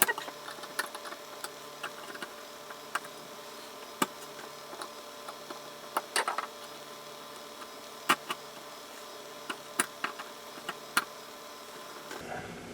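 Scattered small, sharp clicks and taps of fingers and a small tool working a plastic digital wristwatch apart, over a steady faint electrical hum.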